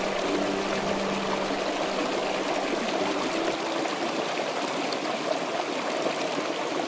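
Creek water running over rocks, swollen by recent storm runoff: a steady, even rush.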